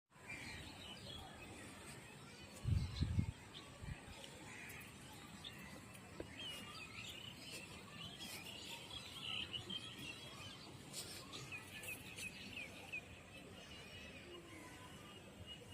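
Outdoor background noise with small birds chirping again and again, busiest in the middle and later part. A brief low thump about three seconds in is the loudest sound.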